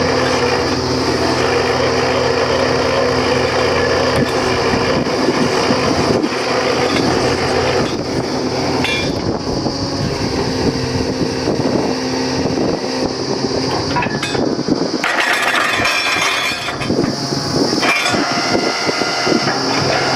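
Truck-mounted borewell drilling rig's engine running steadily while the drill rod is worked, its note changing about three-quarters of the way through, with a rushing hiss for about two seconds.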